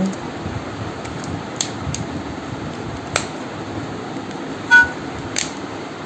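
Light clicks and taps from a keypad mobile phone being handled and wiped clean, over a steady background hum. A brief high-pitched tone near the end is the loudest moment.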